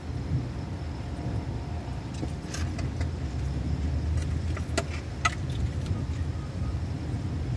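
Steady low rumble, with a scatter of light metallic jingles and clicks through the middle few seconds.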